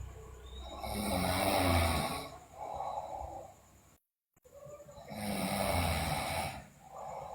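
A sleeping girl snoring: two breaths, each a rasping snore of about a second and a half followed by a shorter, softer breath sound.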